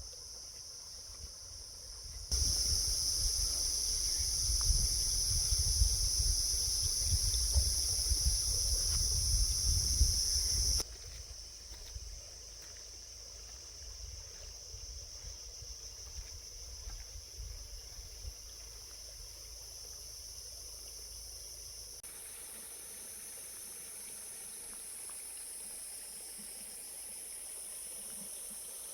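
Steady high-pitched insect chorus. From about two seconds in until about eleven seconds, wind buffets the microphone with a low rumble. The chorus shifts abruptly in pitch and strength about eleven seconds in and again past twenty seconds.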